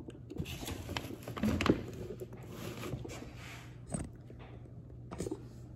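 Scattered light knocks and rustles from someone moving about and handling things, over a steady low hum.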